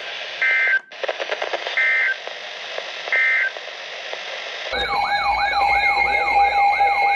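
Three short EAS end-of-message data bursts, each a harsh two-tone warble, over radio static, marking the end of a tornado warning broadcast. About four and a half seconds in, an electronic siren-like tone starts, sweeping up and down about three times a second over steady tones.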